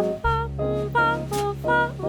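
Jazz ballad played by piano, double bass and drums: short piano chords over a low bass note that enters about a quarter second in, with a cymbal stroke about halfway through.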